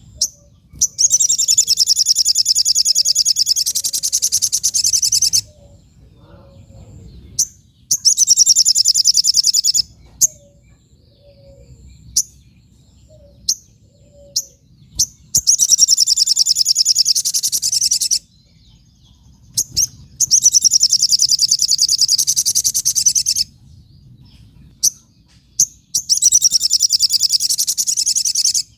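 A sogon (sogok ontong) songbird singing energetically. It gives five long, high, rapidly pulsing trills of two to four seconds each, with short sharp chip notes in the pauses between them.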